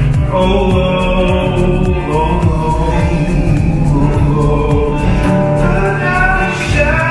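A male singer performing live to his own acoustic guitar, holding long sung notes over the strummed chords.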